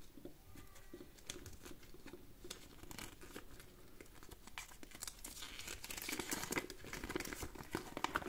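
Cardboard and paper packaging of a LOL Surprise! So Mini toy crinkling and rustling as it is unfolded by hand, with small crackles that get busier in the second half.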